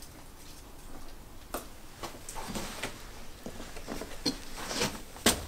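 Scuffs, rustles and scattered knocks of a person climbing out through a low window, shoes and hands on the sill and clothing brushing the frame, with one sharp knock near the end.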